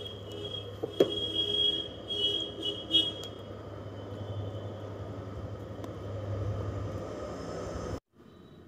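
A steady low rumble of a running motor, with a sharp click about a second in. The sound cuts off abruptly near the end.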